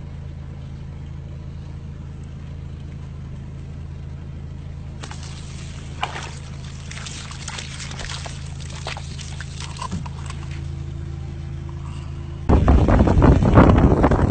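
Steady hum of an idling vehicle engine, with scraping and rustling in the middle. About twelve seconds in, a loud rush of water starts as it is poured into a spiny-tailed lizard's burrow to flood the lizard out.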